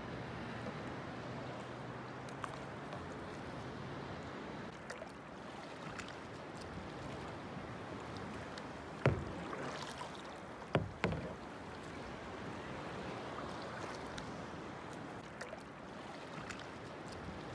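Water lapping and sloshing around a plastic paddleboard on a calm sea, with three sharp knocks about nine to eleven seconds in.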